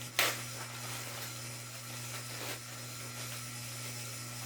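Steady low hum of a ceiling fan, with a brief sharp handling noise of packaging about a quarter second in and a fainter one about two and a half seconds in.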